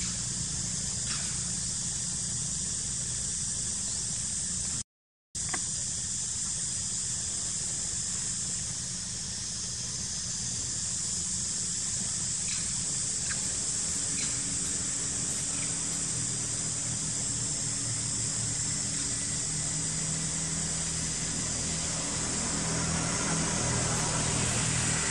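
Steady outdoor ambience: an even high-pitched hiss over a low hum. The sound cuts out for a moment about five seconds in, and the low hum grows a little louder near the end.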